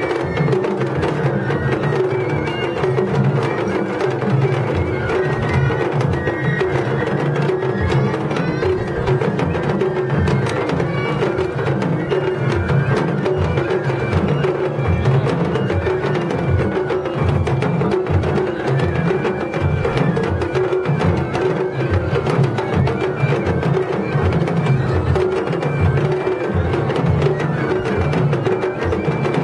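Japanese festival hayashi played on the floats: taiko drums beating a steady, dense rhythm with clacking percussion, and a high melody line over it, going on without a break.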